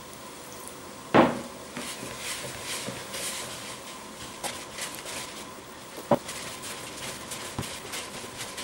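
A hand mixing flour and warm water into a crumbly bread dough in a plastic tub: rustling and scraping strokes against the plastic, with a sharp knock on the tub about a second in and a smaller one around six seconds.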